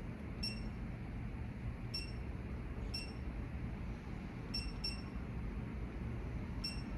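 Six light metallic clicks, each with a short high ping, spaced irregularly, from hand tools working the camshaft bolt, over a low steady hum.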